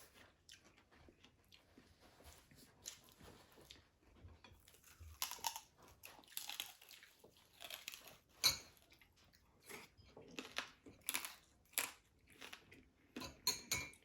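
Close-up chewing and crunching of crispy fried food, with irregular crackling bites, the loudest about halfway through.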